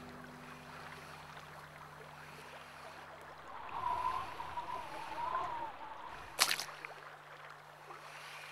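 Water swirling and sloshing in a gold pan, with a wavering tone over it, then a single sharp hit about six and a half seconds in. Soft held music notes fade about a third of the way in, leaving one low note underneath.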